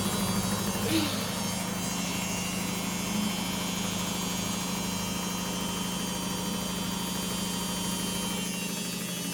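LG WD-80155NUP washing machine running its quick 30-minute cycle: a steady electric hum, with a brief higher sound about a second in. Near the end the deepest part of the hum falls away.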